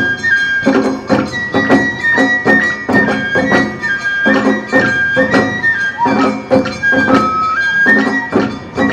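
Awa Odori festival music: a bamboo flute plays a high stepping melody over plucked strings and a steady beat of drum and metal percussion strikes.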